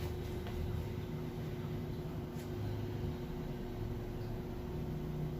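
Steady low mechanical hum, with a faint click about two and a half seconds in.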